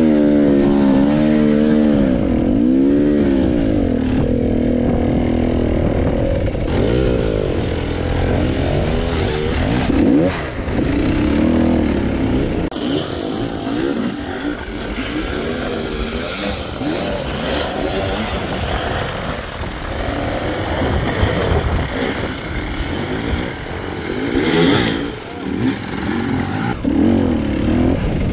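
Off-road dirt bike engines revving hard on a climb, the pitch rising and falling again and again, with abrupt changes a few times as the sound switches between bikes.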